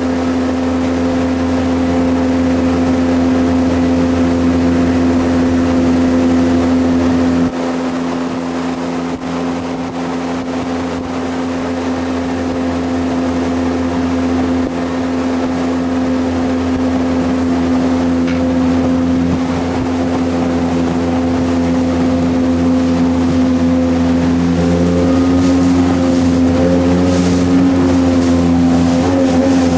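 Jet boat engine running steadily under way, a continuous drone. The deep low end drops off about a quarter of the way in, and the pitch wavers a little near the end.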